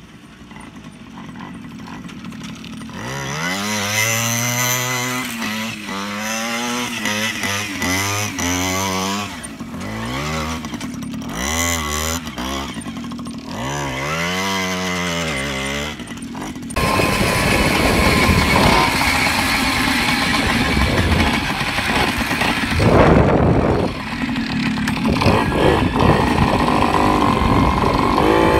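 Small two-stroke moped engine revving up and down repeatedly as it is ridden over grass. About 17 seconds in it gives way to louder, steadier running heard close up from the handlebars while riding on a road, with a rushing noise over it.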